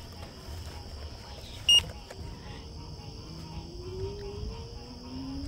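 Electric scooter riding at night, its motor whine rising in pitch as it speeds up, with one short, loud electronic beep about two seconds in. A steady high chorus of frogs and low wind rumble run underneath.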